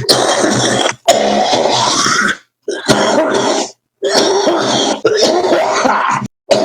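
A man coughing and hacking harshly in four loud bursts, each about a second or two long, with short breaks between them.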